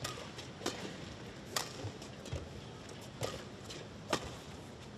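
Badminton rackets hitting a shuttlecock back and forth in a rally: a string of sharp hits, one about every second, the loudest about a second and a half in and near the end, over a low steady arena hum.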